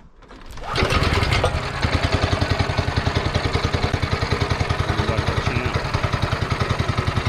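Brand-new Multiquip Whiteman power trowel's Honda GX390 single-cylinder four-stroke engine starting about a second in, then running at a steady idle with an even, rapid pulse.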